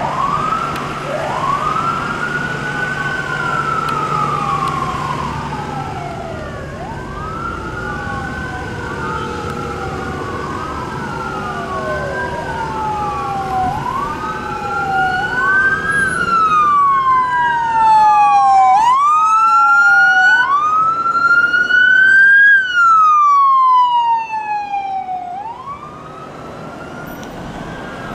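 Emergency vehicle sirens on responding fire apparatus wailing, several at once with overlapping rises and falls, over a steady low engine hum. From about halfway through, one loud siren takes over, each wail rising quickly and falling slowly, until it drops away near the end.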